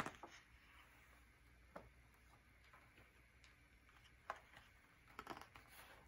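Faint rustling and light taps of the thick paper pages of a handmade photo book being handled and turned: a rustle at the start, a couple of single soft ticks, and a longer rustle about five seconds in.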